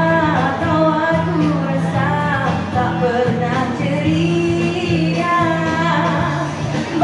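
A woman singing a Malay song into a microphone over backing music.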